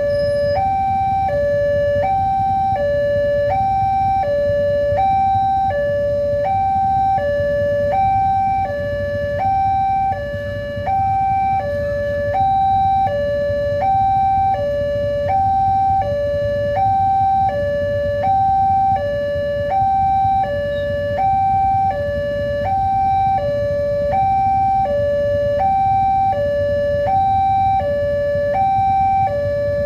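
Electronic warning alarm of a railway level crossing sounding continuously, switching evenly back and forth between two pitches: the signal that a train is approaching and the barrier is down. A steady low rumble runs underneath.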